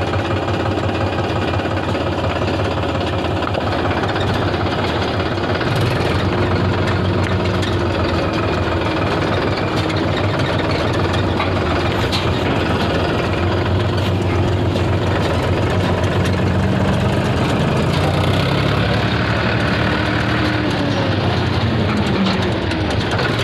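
Tractor engine running steadily, heard close up from the trailer it pulls, with its pitch shifting a little in the second half.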